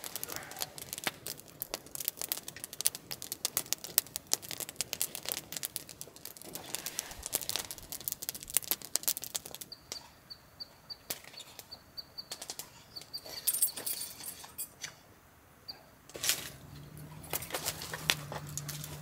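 Dense crackling and snapping of wood through the first half or so. Then short high bird chirps repeat over a few seconds, and a low steady hum with a few knocks comes in near the end.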